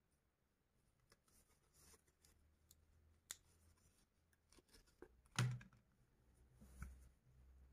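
Faint handling of plastic coin blister cards by cotton-gloved hands: scattered light clicks and rustles, with a sharper tap-and-thud about five and a half seconds in as a card is set down on the table.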